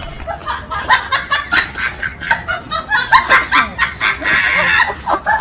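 A person laughing in quick, cackling bursts, about three or four a second, one after another.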